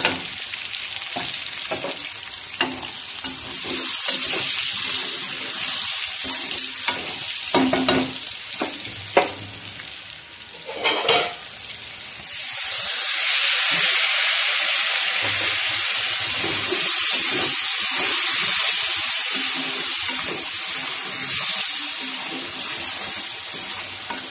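Chicken chunks frying in hot oil in an aluminium pan, sizzling steadily. A metal spoon stirs them, with a few short knocks and scrapes against the pan. The sizzle grows louder about halfway through.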